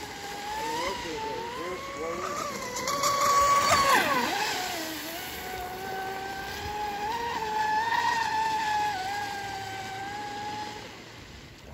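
High-pitched whine of the TFL Pursuit electric RC boat's motor running at speed, its pitch rising and falling. The whine is highest and loudest just before four seconds in, drops sharply, then holds steadier and fades near the end.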